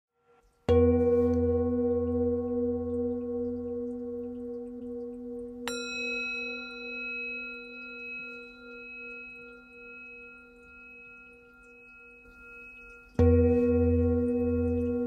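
Singing bowls struck with a mallet and left to ring. A large, deep bowl is struck about a second in and again near the end, and a smaller, higher-pitched bowl is struck once about six seconds in. Each tone rings on for several seconds with a slow wavering beat.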